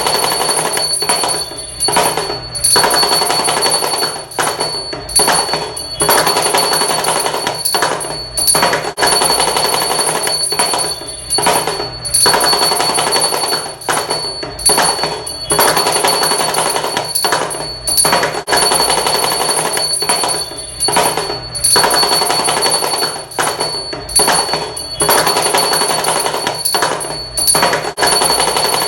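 Damru, the small hourglass-shaped two-headed hand drum, rattled in fast continuous rolls, broken by short pauses every two to three seconds.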